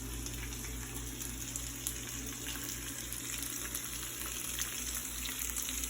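Food sizzling in a frying pan: a steady sizzle with small scattered crackles, over a low steady hum.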